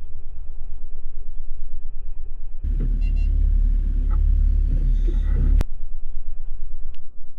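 Low, fluttering rumble of wind buffeting the camera's microphone, with a louder, fuller stretch about a third of the way in that cuts off suddenly.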